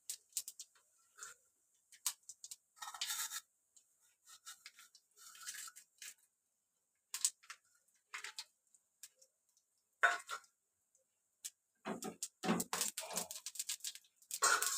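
Steel kitchenware being handled at a gas stove: scattered clinks, taps and scrapes as a steel plate tips spices into hot oil in a steel kadai, over a faint steady hiss. The knocks come denser and louder near the end.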